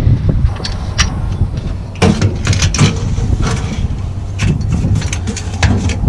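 Clanks and clicks of metal being handled at a sap tanker's rear compartment: the door and the stainless steel valve and hose coupling. The knocks come irregularly and bunch up about two seconds in and again near the end, over a low steady rumble.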